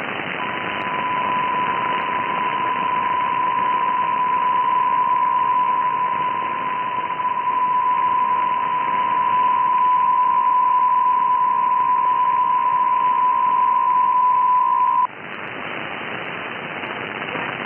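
Shortwave receiver in upper-sideband mode on 6.480 MHz, where the Polish data station P03i is logged: a steady single tone near 1 kHz over band hiss. The tone lasts about fifteen seconds, cuts off suddenly, and leaves only the hiss.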